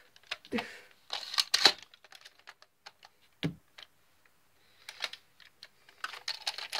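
Plastic clicks and clacks from a small Nerf blaster being handled and its parts worked by hand, in irregular clusters, with one duller thump about three and a half seconds in.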